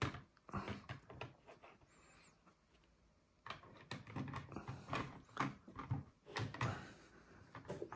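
Hard plastic PSA graded-card slabs clicking and clacking against one another as they are slid, gathered and stacked on a table. The clacking pauses about two seconds in, then comes back as a dense run of clicks.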